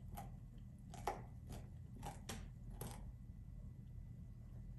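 A puppy crunching on a raw carrot: about six sharp crunches in the first three seconds, then a pause in the chewing.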